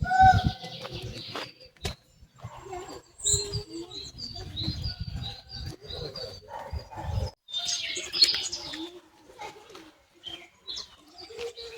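Small birds chirping, a run of short repeated high notes, with low rumbling noise underneath in the first half.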